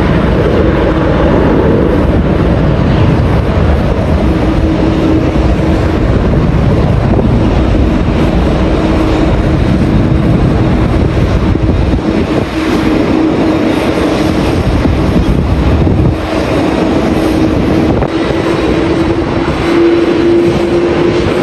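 Jet airliner engines running with a steady drone and a held tone that grows louder and edges up in pitch near the end, mixed with heavy wind buffeting the microphone.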